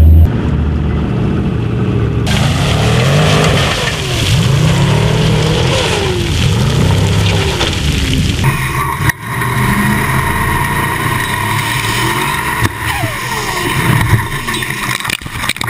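Racing vehicle engine revving hard, its pitch climbing and falling again and again. The sound changes abruptly about two seconds in and again a little past eight seconds.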